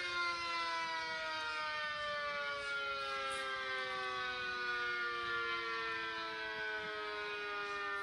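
Sentry 40V2T outdoor warning siren sounding a steady tone whose pitch slides slowly and evenly downward: the siren winding down at the end of its test.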